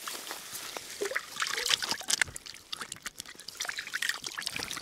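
Water splashing and trickling in a quick run of small splashes.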